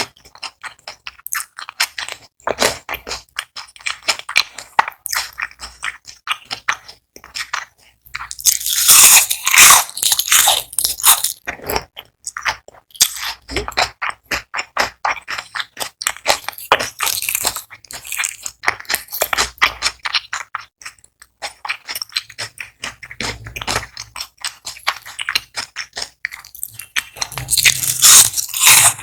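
Close-miked ASMR eating: crispy fried onion rings crunching loudly with each bite and chew, a dense run of rapid crackles, with the loudest bites about a third of the way in and again near the end.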